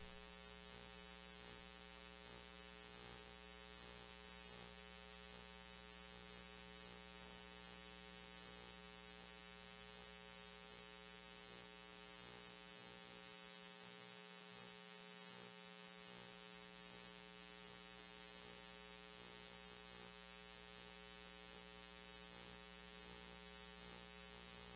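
Near silence: dead air on a NOAA weather radio broadcast, with only a faint steady electrical hum.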